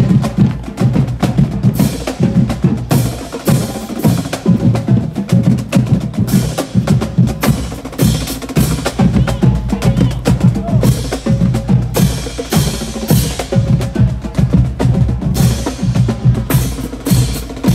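Marching band drumline playing a cadence: rapid snare drum strokes and stick clicks over steady bass drum beats.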